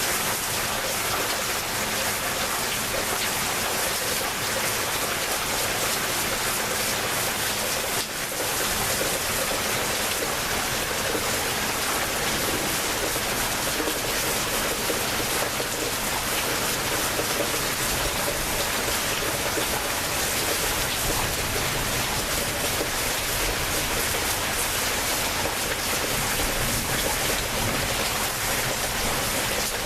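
Rainstorm: steady rainfall, an even hiss that dips briefly about eight seconds in.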